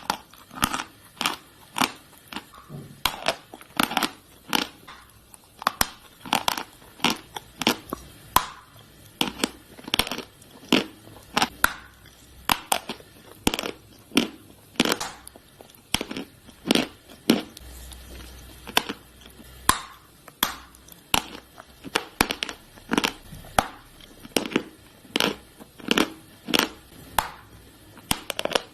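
Dry chalk sticks being bitten and chewed close to the microphone: a steady run of loud, sharp crunches, roughly one or two a second.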